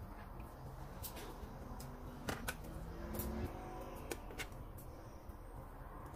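Metal kitchen tongs clicking and scraping against a stainless steel pot as boiled lamb is lifted out of the broth: a handful of scattered sharp clicks, with some soft liquid movement.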